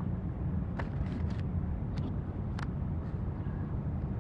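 Steady low outdoor background rumble picked up by the press-conference microphones, with a few brief sharp clicks about a second in and around two seconds.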